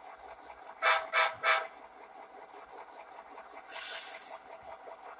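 Sound-equipped HO-scale diesel locomotive model sounding three short horn toots about a second in, then a hiss of air about four seconds in, over the faint steady running of its engine sound.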